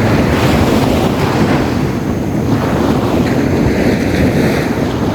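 Sea waves washing onto a beach, with heavy wind buffeting the microphone. Surf swells up about half a second in and again near four seconds.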